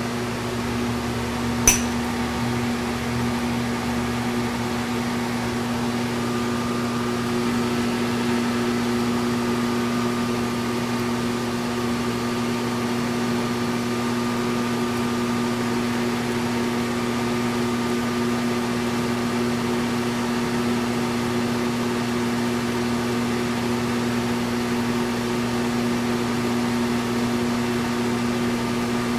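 Machine tool's electric motor running steadily with its spindle out of gear, giving an even hum, with one sharp click just under two seconds in.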